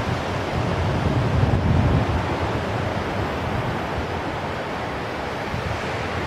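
Surf breaking on a sandy beach, a steady rush, with wind buffeting the microphone in uneven low gusts.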